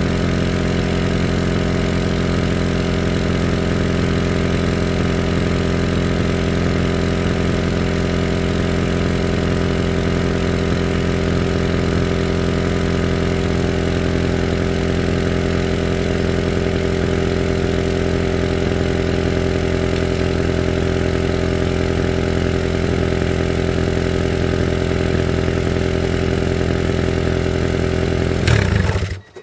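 Honda Prelude BB4's H22A four-cylinder idling steadily through a 5zigen Rocket muffler whose inner silencer has broken off and been pushed back in, so the exhaust runs louder than a stock-baffled one. Near the end the engine blips briefly, then cuts off suddenly.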